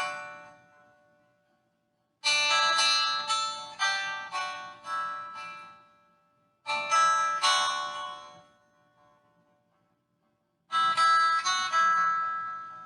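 Music: three short phrases of plucked string notes, each ringing out and fading, with silent pauses between them.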